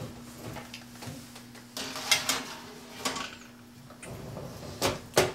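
Metal baking sheet scraping and clattering as it is slid onto an oven rack, with two loud clanks near the end.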